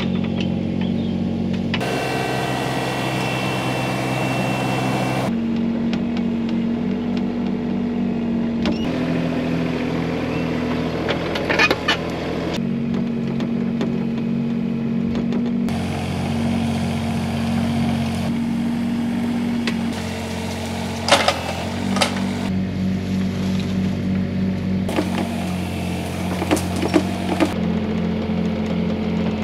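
A compact excavator's diesel engine running under load, its steady drone jumping in pitch every few seconds. A few sharp knocks and cracks come through near the middle and again near the end.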